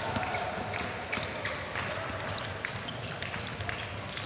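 Basketballs bouncing on a gym floor: irregular thuds and squeaky strikes in a large hall.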